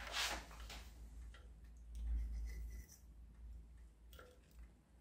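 Light handling noises of string and fingers on a 3D-printed plastic mousetrap-car chassis: a soft rustle at the start, then scattered small clicks and ticks.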